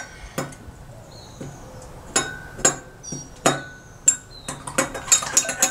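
A metal spoon clinking against the inside of a small cup while detergent is stirred into warm water to dissolve it. The clinks come singly and a second or so apart at first, then quicker and closer together near the end.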